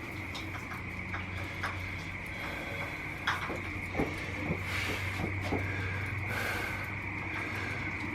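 Cable machine knocking and clicking through a heavy set of high cable pulls at 110, with two breathy hisses about five and six and a half seconds in. The sharpest knocks come between three and four and a half seconds in.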